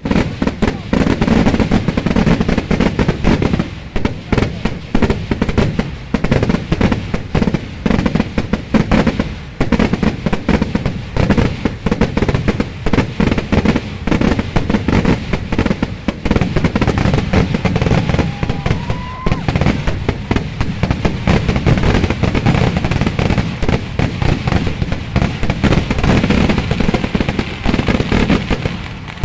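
Fireworks finale: a dense, unbroken volley of rapid firecracker blasts going off one on top of another, loud throughout.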